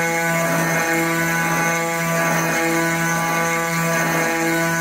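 PWNCNC 1.5 kW water-cooled spindle at 10,000 RPM driving a 1/8-inch two-flute carbide end mill through aluminum plate on a boring pass: a steady high-pitched machining whine with a harsh cutting tone that swells and fades about once a second. It sounds aggressive, yet the cut is coming out clean.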